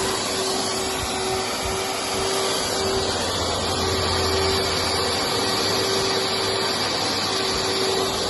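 Vacuum cleaner running steadily: a constant rushing noise with a steady hum and a faint high whine.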